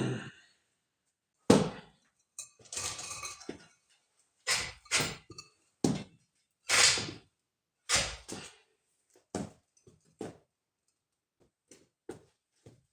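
A series of short, separate knocks and clunks, about a dozen spread unevenly, with silence between them.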